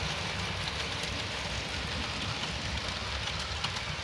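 Model railway freight train rolling past close by: a steady rumble and hiss of metal wheels on the track, with small irregular clicks as the wagons run over the rail joints.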